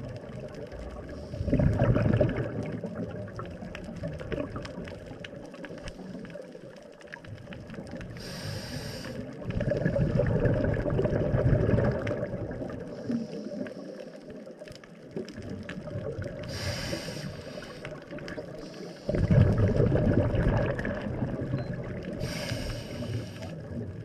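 Scuba diver breathing through a regulator underwater: a short hiss on each inhale, then a louder, longer rush of exhaled bubbles, about every eight to ten seconds.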